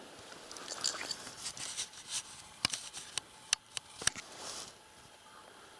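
Dry grass and stems rustling and crackling against the camera as it moves through tall dry grass, with a few sharp clicks or snaps in the middle. The rustling stops a little before the end.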